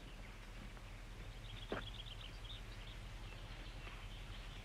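Faint woodland ambience: small birds chirping now and then, over a steady low hum, with one soft knock about a second and a half in.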